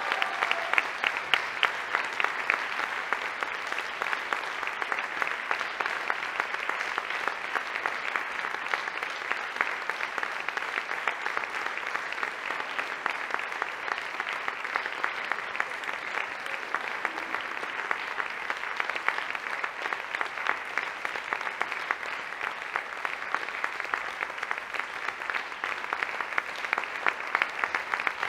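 Audience applauding: many hands clapping in a steady, dense patter that swells slightly near the end.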